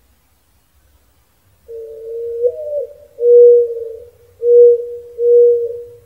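Mourning dove singing its mournful song, starting about a second and a half in: a softer opening coo that slides up and back down, then three louder, low, steady coos.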